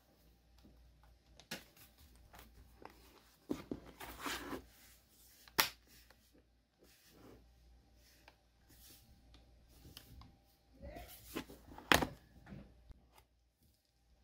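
Plastic bottom cover of an Asus X202E laptop being pressed on by hand: scattered clicks and snaps as its clips catch, with rubbing and handling of the plastic between them. The two sharpest snaps come about five and a half seconds in and about twelve seconds in.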